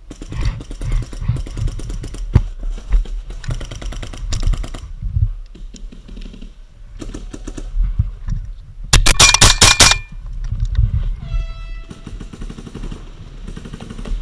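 Paintball markers firing in quick strings of sharp pops, mixed with knocks and rustle of a player moving through cover. The loudest string, a rapid volley, comes about nine seconds in.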